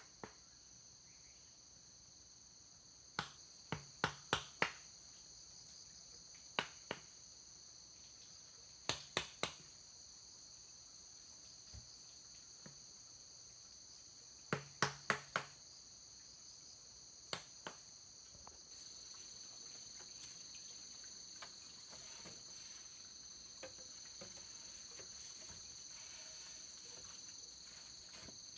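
Steady high-pitched chorus of insects, with scattered clusters of sharp knocks, two to five at a time, through the first two-thirds.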